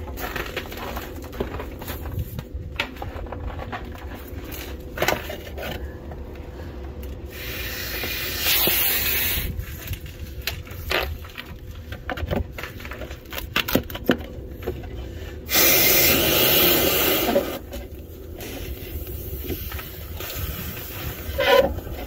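Compressed-air hose hissing into a dryer vent in two bursts of about two seconds each, one near the middle and one about three-quarters through, blowing lint out of the duct. Between the bursts, rubbing and scraping on the galvanized metal vent hood and its flap.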